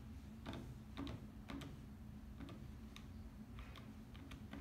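Calculator buttons being pressed: about ten short, faint clicks at an uneven pace as a division is keyed in.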